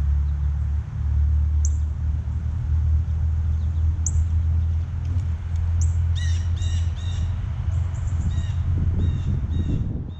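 Wild birds calling at a backyard feeder: a few short high chirps, then from about six seconds in a run of repeated calls, about three a second, lasting some four seconds. A steady low rumble runs underneath.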